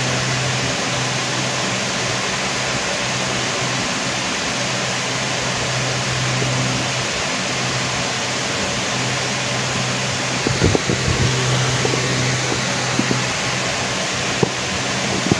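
Electric fan running: a steady rushing noise with a low hum underneath. A few soft knocks and rustles come in the last few seconds.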